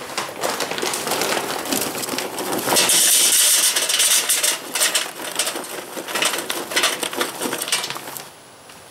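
Charcoal briquettes poured from a paper bag into a metal chimney starter, clattering against one another and the steel can. The pour is heaviest about three seconds in and stops near the end.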